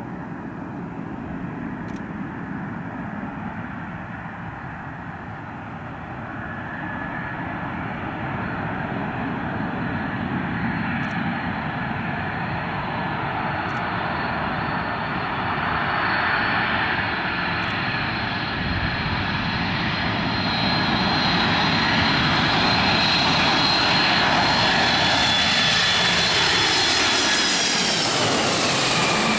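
Boeing 767 airliner's twin turbofan engines on final approach: a rushing jet noise with a steady high whine, growing louder as the plane nears. Near the end it passes overhead and the whine drops sharply in pitch.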